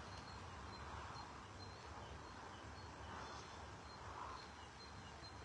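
Quiet outdoor ambience with faint, high bird chirps scattered throughout.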